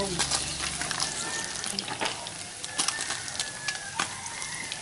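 Fish deep-frying in hot oil in a wok: a steady sizzle with many small crackling pops.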